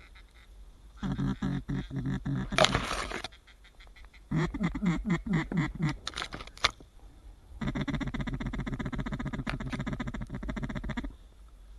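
Duck quacking in rapid runs: a short burst about a second in, another a little after four seconds, then a long, even string of fast quacks for about three and a half seconds. A short hissing rush cuts across the first run.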